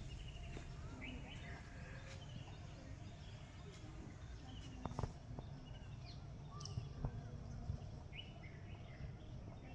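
Faint outdoor ambience of several small birds chirping in the trees, over a low steady rumble, with a few soft clicks in the middle.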